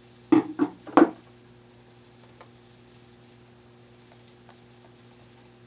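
Faint, scattered small clicks of a screwdriver working the terminal screws of a plastic lampholder, a few close together about four seconds in, over a steady low hum. A short voice sound in the first second is the loudest thing.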